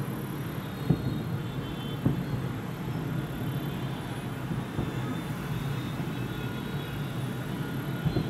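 Aerial firework shells bursting in quick succession, their booms merging into a continuous rumble, with sharper bangs about one and two seconds in and again near the end.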